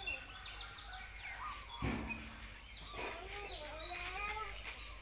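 Birds chirping and calling in short bursts, with a single knock about two seconds in.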